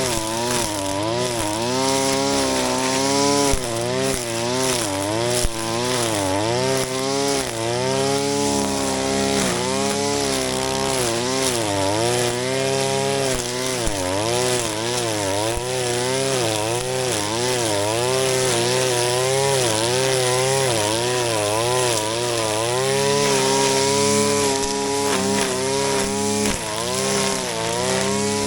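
Shindaiwa RK3026-PT 25.4 cc two-stroke brush cutter running while cutting grass. Its engine pitch rises and falls over and over without a break.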